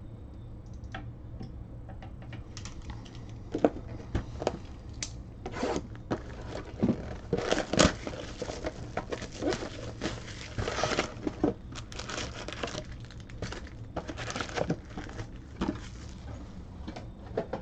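Plastic shrink wrap being torn off trading-card hobby boxes and crumpled by hand, with the boxes and foil card packs handled: an irregular run of crinkling, tearing and rustling with sharper crackles here and there.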